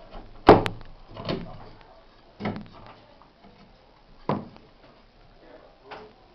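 A series of heavy knocks or thumps, five in all at uneven intervals. The first, about half a second in, is the loudest and has a sharp click at its onset; each dies away quickly.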